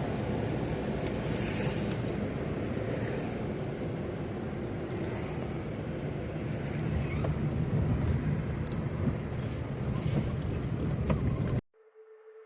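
Steady low rumbling background noise with a few faint clicks, cutting off abruptly near the end.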